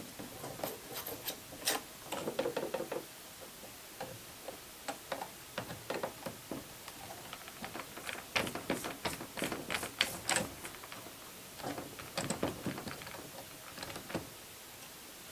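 Irregular clicks, taps and rattles of a Roomba 770 robot vacuum's plastic parts being handled and worked on, with clusters of quick clicks about two seconds in and again around eight to ten seconds in.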